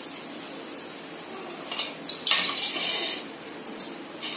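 Hot oil sizzling in a kadhai as a fried potato papad is lifted out with metal tongs, the tongs clinking and scraping against the pan several times in the second half.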